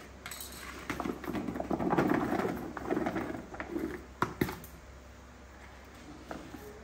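Cut raw mango pieces tossed and shaken in a plastic bowl, tumbling and clattering against each other, with two sharp knocks a little after four seconds in; it goes quieter after that.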